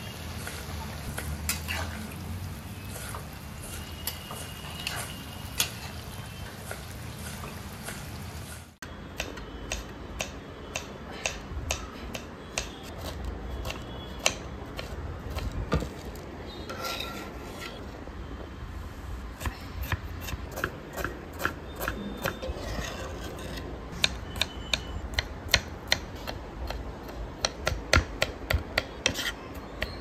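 Kitchen knife chopping green chillies and garlic on a wooden cutting board: runs of sharp taps as the blade strikes the wood, quickening into rapid strokes near the end. A steady low hum fills the first several seconds.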